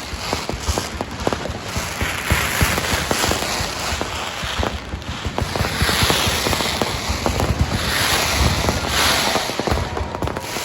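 Fireworks and firecrackers going off without a break: a dense, rapid crackle of small bangs over a steady hiss.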